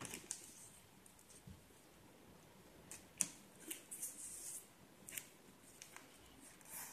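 A sheet of origami paper rustling and crinkling faintly as it is folded and pressed by hand, with a sharp tick about three seconds in.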